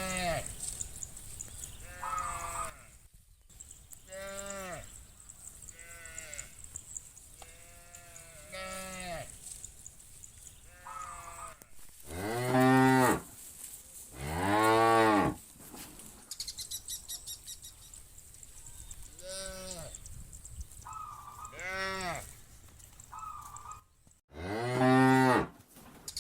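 A herd of cattle mooing, one call after another about every two seconds, mostly shorter, higher-pitched calls, with three long, loud, deep moos: two in the middle and one near the end.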